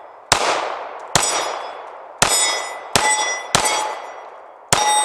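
Six shots from a Taurus G3C 9mm pistol at an uneven pace, roughly one a second, each followed at once by the ringing clang of a steel plate target being hit.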